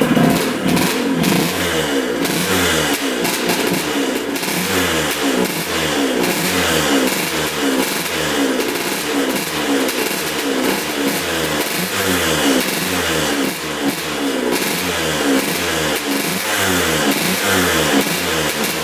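1977 Suzuki RM125's single-cylinder two-stroke engine running at a low idle, its note dipping and picking back up a little more than once a second. It is running cleanly after its first start in over 20 years, which the owner takes for a tight engine.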